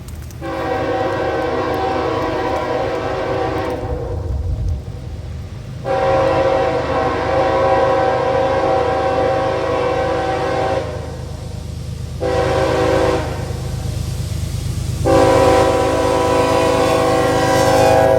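Locomotive air horn sounding a chord in the grade-crossing pattern: two long blasts, one short, then a final long blast held to the end. This is the standard warning for a road crossing. The low rumble of the train runs underneath.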